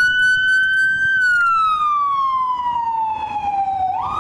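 Fire engine siren wailing: the tone holds high, glides slowly down for about three seconds, then sweeps quickly back up near the end.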